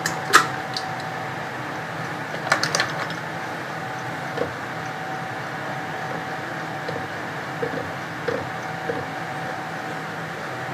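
A few light clicks and taps of kitchen utensils against a container over a steady background hum with a faint steady tone. There is a small cluster of clicks about two and a half seconds in, and faint taps later on.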